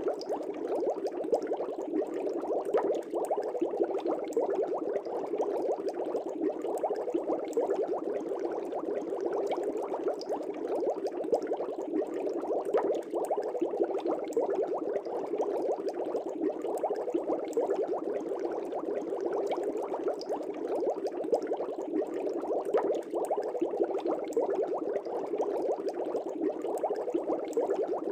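Aquarium air bubbles rising and breaking at the water surface in a fish tank: a continuous, even burble made of many small rapid pops.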